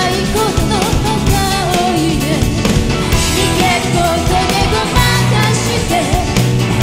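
Female vocalist singing a pop-rock song live into a handheld microphone, backed by a full band.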